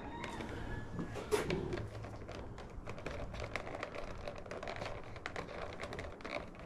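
Irregular small clicks and taps of hands working turn-signal wiring in behind a cable on a motorcycle, with one louder click about a second and a half in.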